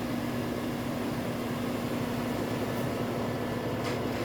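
Samsung AddWash front-load washer spinning at high speed during its spray rinse, water spraying into the spinning drum over a steady hum from the digital inverter motor.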